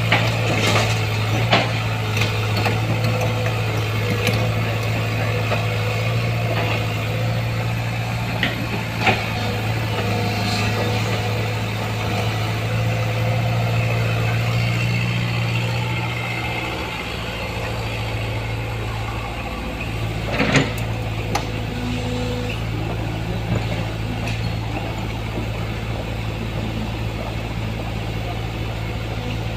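Heavy diesel engine running steadily, its note shifting lower about halfway through, with a few sharp metallic knocks over it.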